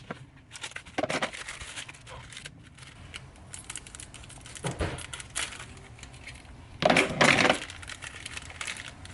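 Luggage being handled and loaded into a car trunk: a run of clicks, knocks and rustling, with a louder clatter of bags about seven seconds in.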